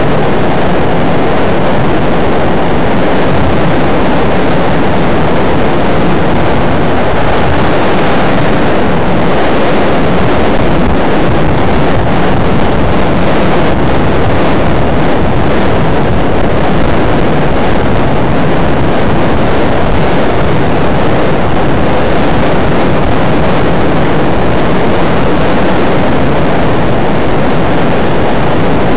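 Loud, steady rushing wind noise with no change in level and no distinct events.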